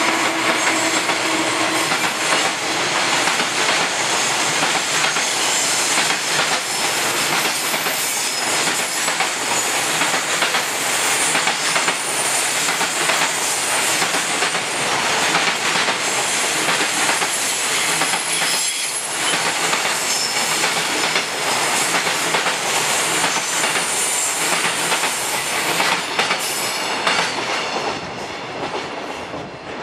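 Freight train's container flatcars rolling past: a steady clatter of wheels over rail joints, with faint high wheel squeals at times. The sound falls away near the end as the last wagon goes by.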